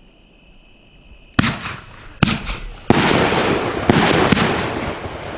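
Fisherman Fireworks 'Death Punch' 500-gram cake firing its shots: five sharp launch bangs at uneven intervals starting about a second and a half in, each followed by a dense crackle from the strobe and palm breaks.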